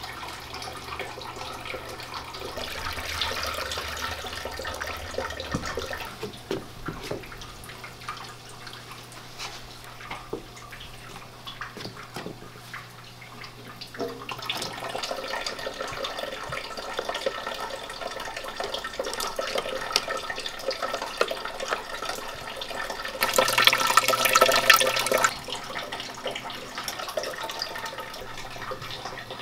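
Water trickling and splashing from a small garden fountain and a toy water table, with scattered light knocks. A louder rush of water lasts about two seconds, some 23 seconds in.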